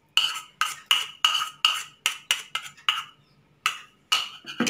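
A steel spoon clinks and scrapes against the sides of a bronze pot as ghee-fried cashews and raisins are stirred into thick sweet rice and milk. There are about a dozen short ringing clinks at an irregular quick pace, with a brief pause a little after three seconds in.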